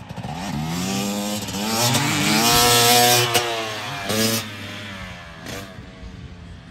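Motocross dirt bike engine revving and accelerating across the track, loudest around three seconds in, with a short blip of throttle a little after four seconds, then fading as the bike rides away.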